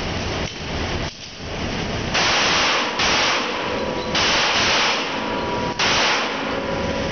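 A string of semi-automatic pistol shots about a second apart, each one leaving a long echoing tail off the concrete walls of an indoor range.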